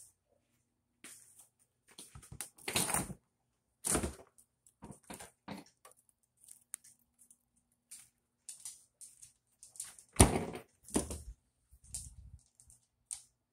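Refrigerator and pantry doors being opened and shut, a string of clicks, knocks and rustles from handling them. The loudest knock comes about ten seconds in.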